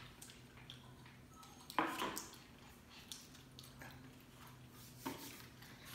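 Quiet eating at a table: people chewing and biting into small pies, with small clicks and wrapper rustles, over a faint steady hum. A brief louder sound comes about two seconds in and another shorter one near the end.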